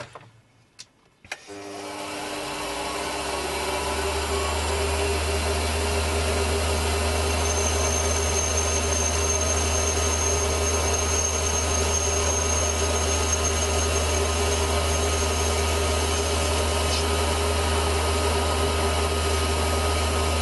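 Small metal-working lathe switched on with a click, its motor and spindle running up over about two seconds and then running steadily with a deep hum, while a light finishing cut is taken on a small bar held in a collet chuck. A faint high whine sounds through the middle.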